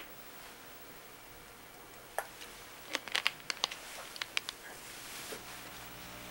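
Quiet room hiss with a quick run of sharp clicks and crinkles from about two to four and a half seconds in. A faint steady hum comes in near the end.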